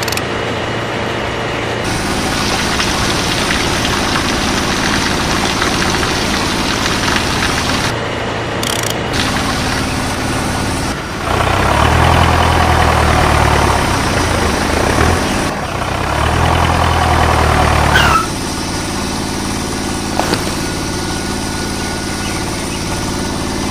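Small motor-driven machinery running with a steady mechanical hum. The sound changes abruptly several times and is loudest, with a strong low hum, for about seven seconds in the middle.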